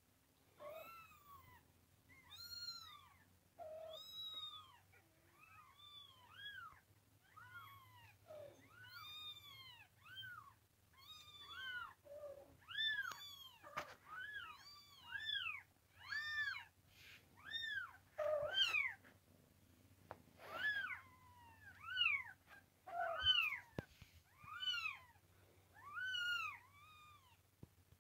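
A young kitten mewing over and over, about one short, high-pitched, arching cry a second, with hardly a pause. It is the constant crying of a kitten that will not settle, growing louder in the second half.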